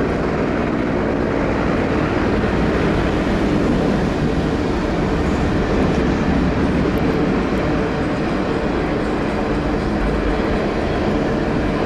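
A diesel freight train running past: a steady rumble of locomotive engines over the noise of rolling wheels on the rails.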